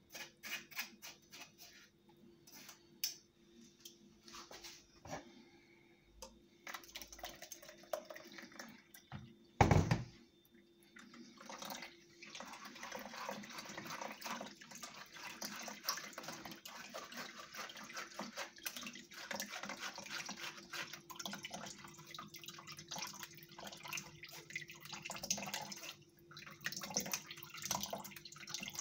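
Blended fruit juice trickling from a hand-held mesh sieve into a plastic bowl, a steady stream from about twelve seconds in, more broken near the end. Before that, small clicks and taps of the spoon and sieve, with one loud knock about ten seconds in.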